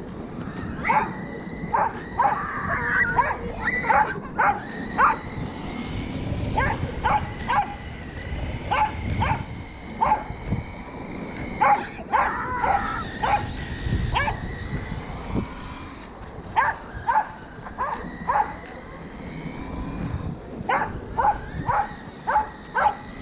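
Welsh corgi barking in bursts of short, sharp barks while chasing a radio-controlled toy truck; a run of barks comes every few seconds.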